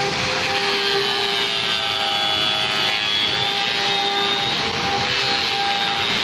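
Electric angle grinder with a sanding disc running continuously against wood, a steady whine over a rough abrasive hiss; the whine dips in pitch briefly twice, about half a second in and again near the five-second mark.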